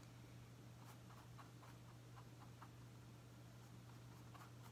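Near silence: a few soft strokes of a wet flat paintbrush across canvas over a low steady hum, several in the first few seconds and one more near the end.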